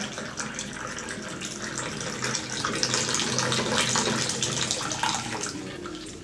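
Water pouring in a steady stream, swelling about halfway through and tapering off near the end.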